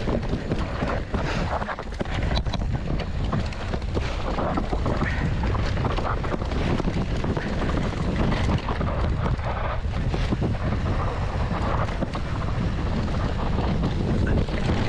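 Wind rumbling on the microphone of a mountain bike riding down a trail, with frequent small knocks and rattles from the bike on rough ground.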